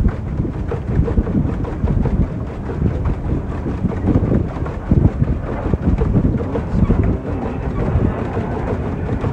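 Wind buffeting the microphone aboard a moving boat: a dense low rumble that swells in irregular gusts.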